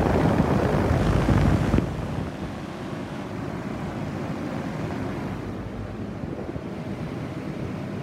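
Trane Odyssey heat pump outdoor unit running in heat mode, its condenser fan blowing a steady rush of air through the iced-over top grille, with a faint steady hum underneath. The coil is heavily frozen and the unit has not yet gone into defrost. The rush is louder and rougher for about the first two seconds, then settles.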